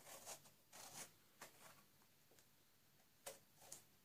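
Faint short scrapes of a kitchen knife peeling thin strips of skin off an eggplant, a few strokes early on and two more near the end with a quiet pause between.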